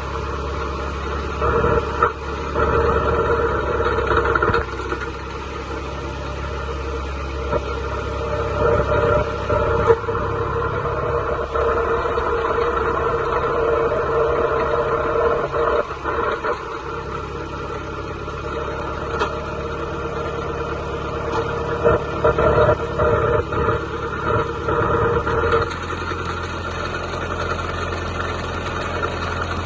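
John Deere 2130's three-cylinder diesel engine running steadily; its note shifts about 26 seconds in.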